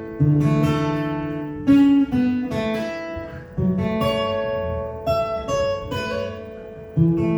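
Acoustic guitar playing a song's intro: chords struck and left to ring, a new chord every second or two.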